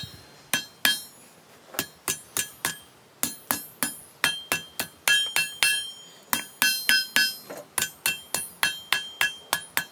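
Blacksmith's hand hammer striking an iron bar on an anvil, about three blows a second in runs with short pauses, the anvil ringing with a clear metallic tone after many of the blows.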